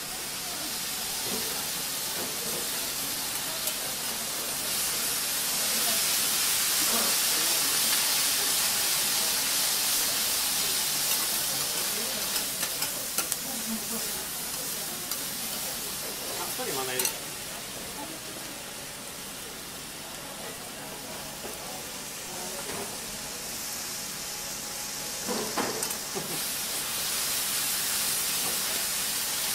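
Sauced yakisoba noodles sizzling on a hot steel teppan griddle while two metal spatulas toss and scrape them, with occasional clicks of the spatulas on the plate. The sizzle swells after a few seconds, drops back a little past halfway, and picks up again near the end.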